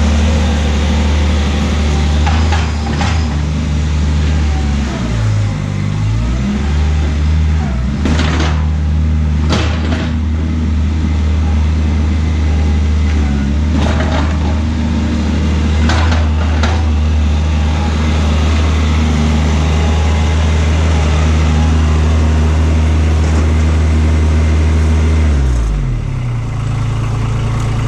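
An engine running steadily, with several sharp metallic clanks. Near the end its pitch drops and changes.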